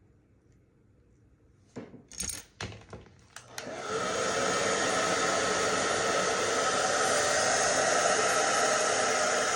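A few knocks and clatters from handling, then a hair dryer switches on about three and a half seconds in and runs with a steady blowing noise.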